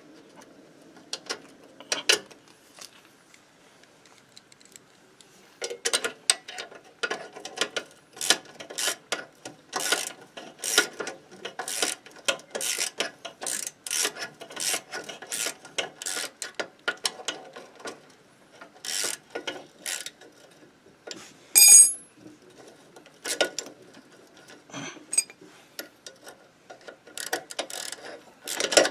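Hand ratchet wrench clicking through repeated short strokes as a bolt on a moped's spring bracket is undone, starting about six seconds in. A brief bright metallic ring sounds about two-thirds of the way through.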